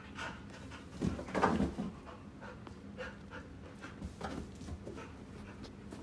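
Ceiling fan running with a steady low motor hum. About a second in comes a louder patch of irregular breathy noise, with scattered soft clicks across the rest.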